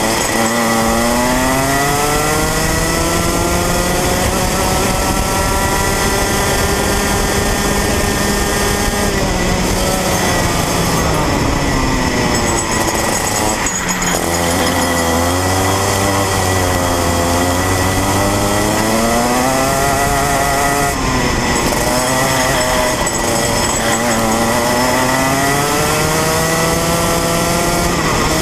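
Rotax Minimax 125cc single-cylinder two-stroke kart engine at racing speed, heard from on board: the revs climb steadily along a straight, drop sharply a third of the way in and again near halfway as it backs off for corners, then wind up and fall again before climbing once more near the end.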